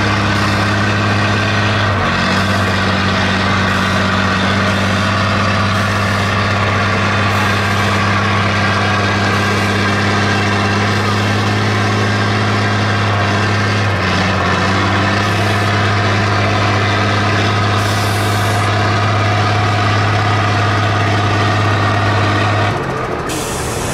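Truck's diesel engine idling steadily with a low hum, its pitch shifting slightly twice. It cuts off about a second before the end.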